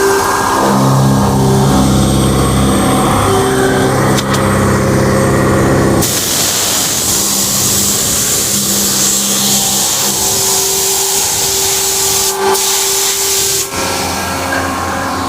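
Vertical machining centre running: a steady machine hum and whine that shifts in pitch, then after an abrupt change about six seconds in a loud, even spraying hiss over the running machine that stops abruptly near the end.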